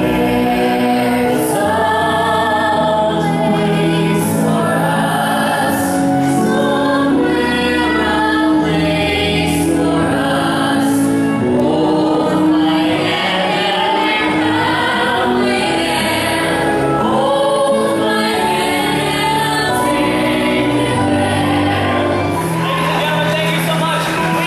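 A live vocal ensemble, women's voices to the fore, singing a show tune together through microphones over musical accompaniment.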